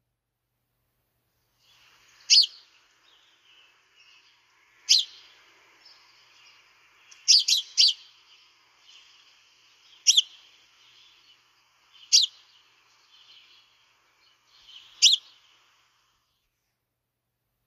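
House sparrow chirping: single loud cheeps every two to three seconds, with a quick run of three about halfway through.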